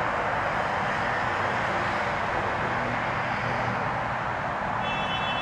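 Steady, even hum of distant city traffic. A brief high tone sounds over it near the end.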